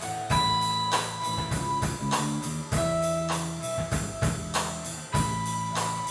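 Live band playing an instrumental passage between sung lines: long held guitar notes ringing over a bass guitar line and a steady drum-kit beat.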